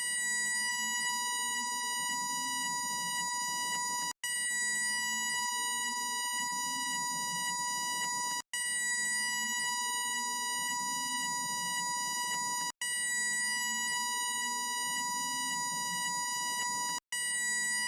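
Railway level-crossing warning signal: one steady, high, buzzy electronic tone. It cuts out for a split second about every four seconds.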